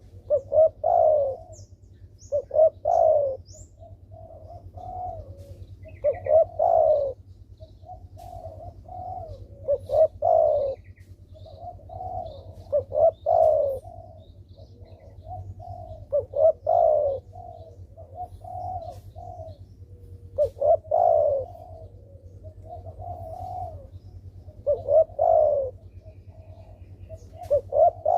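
Spotted dove (derkuku) cooing over and over: a louder, emphatic phrase comes about every three to four seconds, with softer coos in between. A steady low hum runs underneath.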